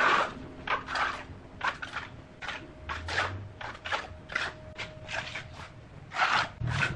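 Hand trowel scraping and smoothing wet cement mortar in quick repeated strokes, about three a second.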